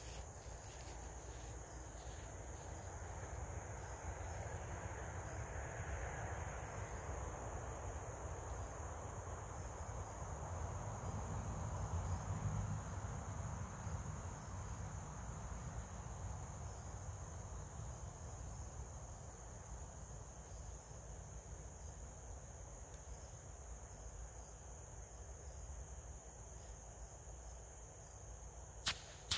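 Steady high-pitched chorus of crickets, with a soft low background rumble. Just before the end, a single sharp crack as the first bottle rocket goes off.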